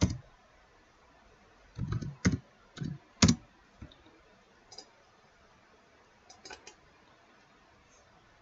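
Irregular clicks of a computer mouse and keyboard at a desk: a run of several close together around two to three seconds in, the loudest among them, then a few sparser, fainter ones.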